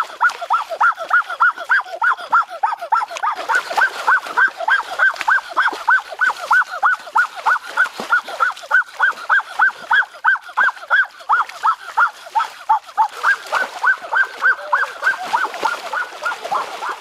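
An animal calling in a rapid, even series of short rising-and-falling notes, about four a second, unbroken throughout.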